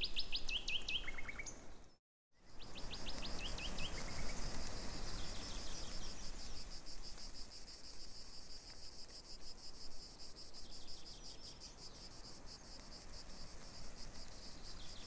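Insects chirping in a steady, rapid high-pitched pulse, with a songbird's trill of quick falling notes at the start, again just after a brief dropout about two seconds in, and once or twice more later on.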